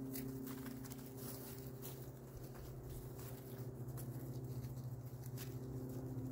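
Scattered light rustles and crackles of feet moving through dry fallen leaves and grass, over a steady low hum.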